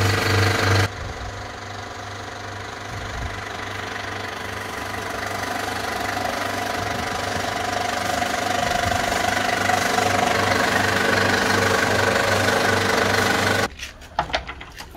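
Old carbon-arc film projector running, its film mechanism clattering in a steady, even rhythm over a motor hum and growing slowly louder. It cuts off abruptly near the end, leaving a few faint clicks.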